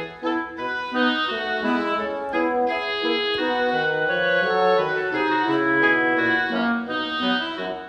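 Background instrumental music: a slow melody of held notes and chords.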